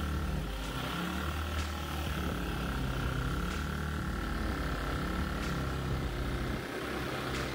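Modified Honda GX200 single-cylinder engine running under way on a Mud-Skipper longtail mud motor, its pitch rising and falling a little with the throttle.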